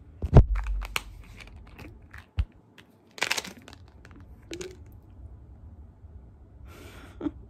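Handling noises: a loud knock from the phone being moved about half a second in, then scattered clicks, crinkles and a short rustle a little after three seconds as a vitamin bottle is handled and opened.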